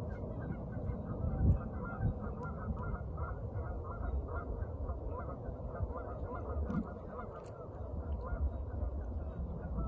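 A large flock of geese honking continuously, many calls overlapping into a steady chatter.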